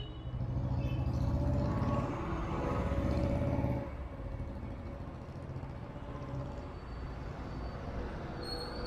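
A motor vehicle's engine passing close by for about the first four seconds, then easing into a steady background of street traffic.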